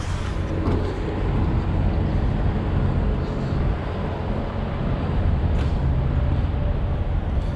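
Vehicle engine running with a steady low rumble and a faint hiss over it.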